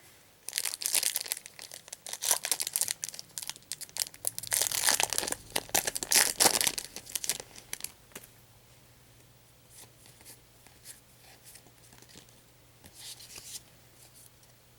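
Foil trading-card booster pack being torn open and its wrapper crinkled, the crackling coming in bunches over several seconds, then only faint scattered rustles with a short crinkle near the end.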